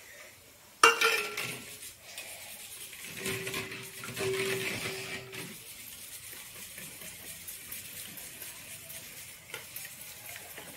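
A spoon beating egg and masala in a stainless steel bowl. A sharp metal clink comes about a second in, followed by scraping and a ringing of the bowl as the egg is whisked.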